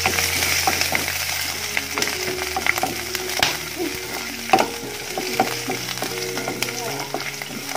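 Cumin seeds, whole spices and chunks of ginger and garlic sizzling in hot oil in a nonstick kadai. A spatula stirs them, clicking and scraping against the pan again and again.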